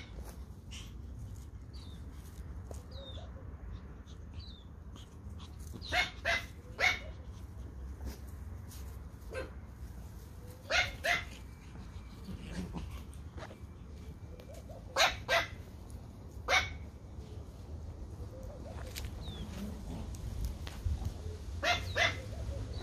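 Pomeranian puppies barking in short, high yips, in quick clusters of two or three that come again and again.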